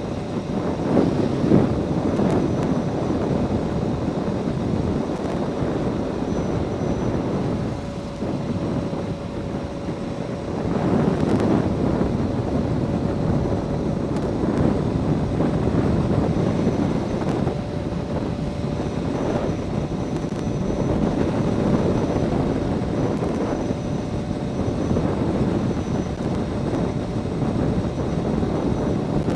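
Yamaha R1 sportbike under way, its engine running beneath a steady rush of wind noise over the microphone, the level rising and falling with speed.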